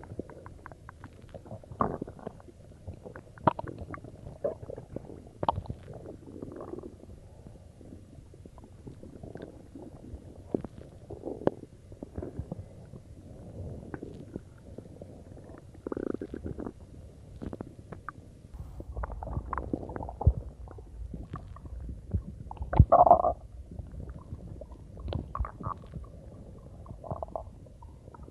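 Human stomach gurgling and rumbling with cola in it: a string of short pops and gurgles, a longer low rumble about two-thirds of the way in, and the loudest gurgle soon after.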